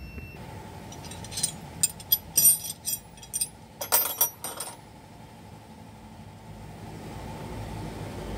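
Metal hand tools clinking and rattling against bolts and brackets in an engine bay: a quick run of sharp clinks starting about a second and a half in and stopping near the middle, over a steady low hum.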